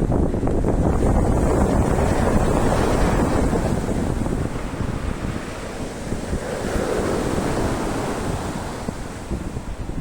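Sea waves washing onto the beach, with wind buffeting the microphone.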